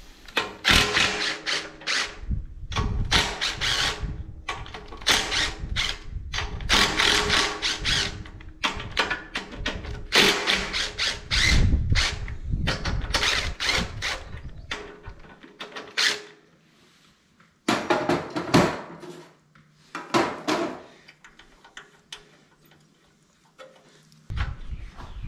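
Cordless power driver with a 1/2-inch socket running in repeated short bursts as it spins the head bolts out of a Briggs & Stratton 8 hp engine's cylinder head. The bursts come close together at first, then fewer and shorter, and stop a few seconds before the end.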